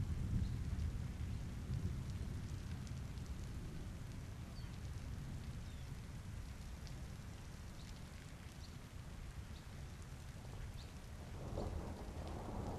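Steady rain falling, with a low rumble of thunder that fades away over the first few seconds and builds again near the end.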